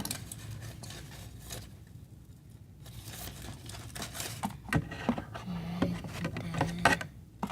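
Objects being handled and moved aside on a table: crinkling, scraping and light knocks, with a quieter pause about two seconds in.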